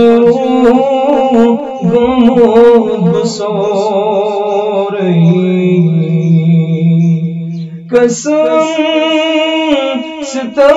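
A man singing a naat unaccompanied, drawing out the melody in long, wavering notes without clear words. In the middle he holds one low note for about three seconds, breaks off briefly about eight seconds in, and starts the next phrase.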